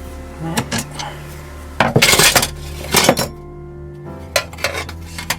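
Metal tools and parts clinking and clattering against each other, with a run of sharp knocks and a longer rattling clatter about two seconds in.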